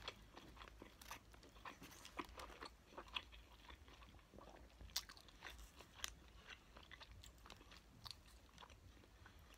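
Faint close-up chewing and wet mouth clicks of a person eating a bunless double cheeseburger patty, with scattered small sharp clicks, two of them louder about five and six seconds in.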